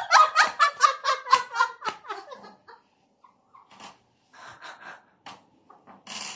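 Women laughing hard: a quick run of ha-ha-ha pulses for about two seconds that trails off into fainter, breathy giggles and gasps.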